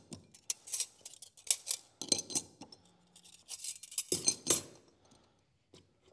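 Thin steel clutch plates and other steel parts of a G80 locking differential clinking and scraping against each other as they are picked up, sorted and set down, a string of light metallic clicks and rattles in several short clusters.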